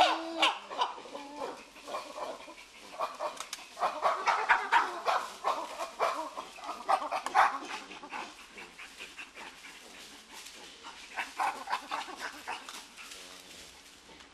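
Chimpanzees giving pant-grunts, rapid series of short breathy grunts with which a subordinate greets a dominant. The calls come in bouts, loudest a few seconds in, with another bout later, then die away near the end.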